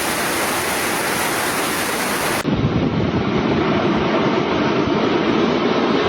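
Steady rushing of water. About two and a half seconds in it cuts abruptly to a deeper, heavier rush, as from a second piece of footage.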